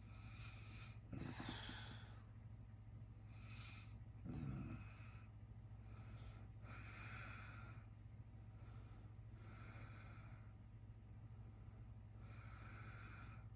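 A sleeping man breathing heavily, a breath about every three seconds, with two short snorts, about a second in and again about four and a half seconds in. A steady low hum runs underneath.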